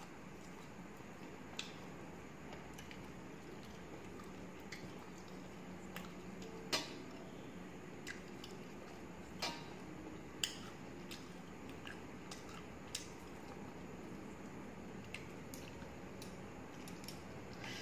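Hand-eating sounds: fingers mixing rice and curry on a metal plate, and chewing, with a few sharp clicks scattered through, the loudest about seven seconds in, over a steady background hiss.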